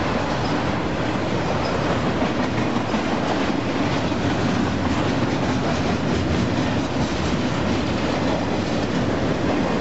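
Intermodal freight train cars rolling past close by. A steady rumble of steel wheels on rail carries a rhythmic clickety-clack of wheels over the rail joints.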